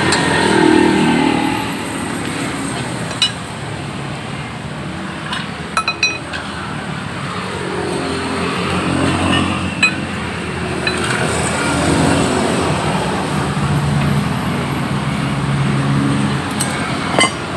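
Motor traffic passing on the street, engines rising and falling, with a few sharp metallic clinks.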